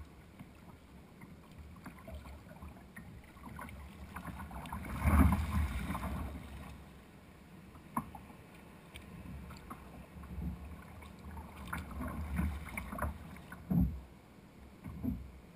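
Sea water sloshing and splashing against an ocean kayak's hull as it rides the swells. The rush of water is loudest about five seconds in, followed by several sharp splashes.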